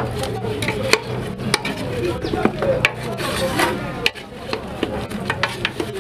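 A wooden spoon stirring pork pieces and chopped herbs in an aluminium pot, with irregular knocks and scrapes of the spoon against the pot and meat. A steady low hum runs underneath.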